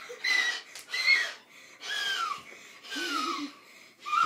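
Children's breathy, high-pitched shrieks and squeals in rough play, about four in a row, several falling in pitch.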